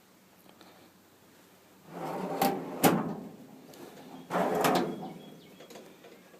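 Steel drawers of a US General four-drawer tool cart sliding open and shut, twice: a smooth slide about two seconds in and again about four seconds in, each with sharp clacks as the drawer hits its stop.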